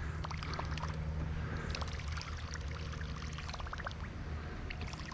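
Shallow creek water trickling and burbling steadily, with many small scattered clicks.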